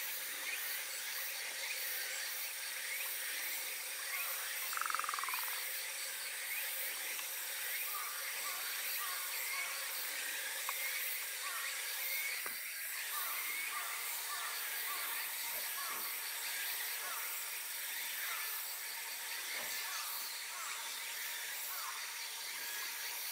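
Outdoor ambience of calling wildlife: a steady high-pitched drone with short chirping calls repeated many times, and a single falling call about five seconds in.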